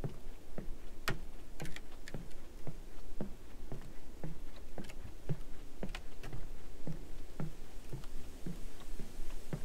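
Footsteps on a wooden boardwalk, about two steps a second, each a dull thud on the planks, with a few sharper clicks among them.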